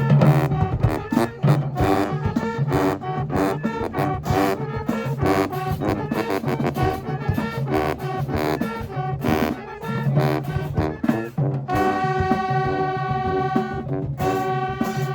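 High school marching band playing: brass-heavy horn lines over drums, with a held brass chord from about twelve seconds in to about fourteen seconds in before the drums come back.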